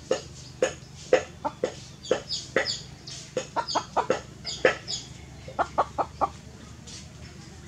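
Chickens clucking: short, sharp calls in an irregular series, two or three a second, with a quick run of four about three quarters of the way through.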